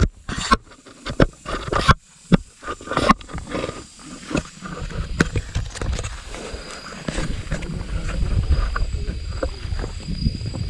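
Handling noise on a handheld camera's microphone: fingers rubbing and knocking on it, with brief dropouts in the first three seconds, then a rough low rumble with scattered clicks.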